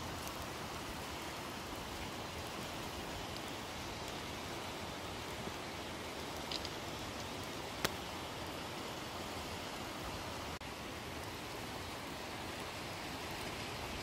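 Steady hiss of rain falling together with the rush of a mountain stream, with a single sharp tick about eight seconds in.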